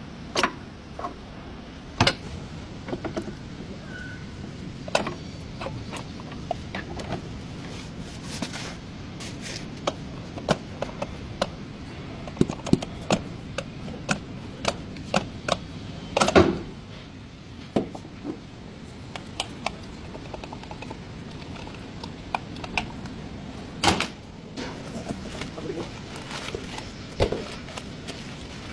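Irregular knocks and clicks of hand tools on metal while working on a car's front CV axle, over a steady background noise, with a few louder knocks about two seconds in, past the middle and near the end.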